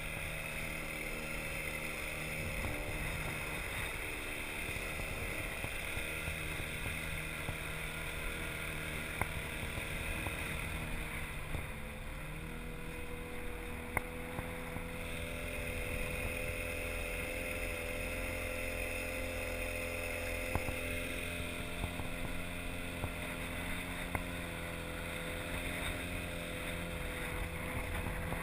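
Outboard motor of an inflatable boat running steadily, its pitch stepping up slightly partway through, with wind and water hiss on the microphone and a few faint knocks.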